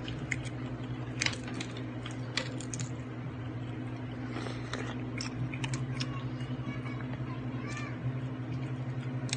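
A cat meowing faintly a few times in the second half, over a steady low hum, with scattered sharp clicks and taps.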